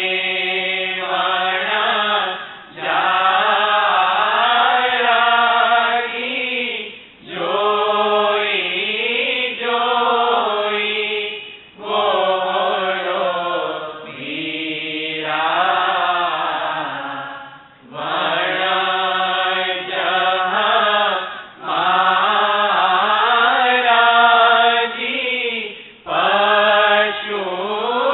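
Devotional chanting: a voice sings long, gliding melodic phrases of a few seconds each, with short breath pauses between them, about eight phrases in all.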